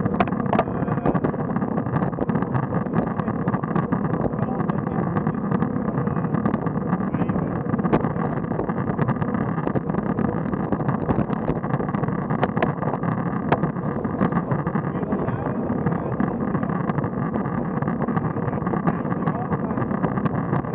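Steady rush of wind and road noise on an action camera's microphone on a road bike riding in a group at about 21 km/h, with scattered sharp clicks.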